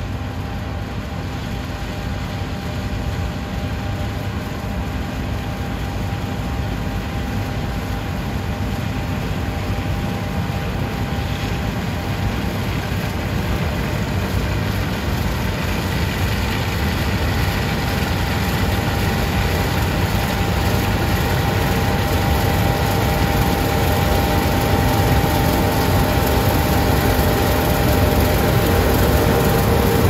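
John Deere combine harvester running under load while cutting a crop: a steady engine and machinery drone with a constant whine, growing louder as it comes closer.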